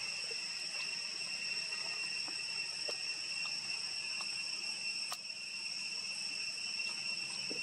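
Steady high-pitched drone of insects in chorus, an even buzz that does not change, with a few faint clicks and one sharper click about five seconds in.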